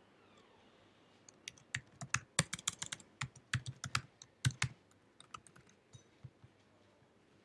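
Typing on a computer keyboard: a quick run of key clicks lasting about three seconds, then a few scattered keystrokes.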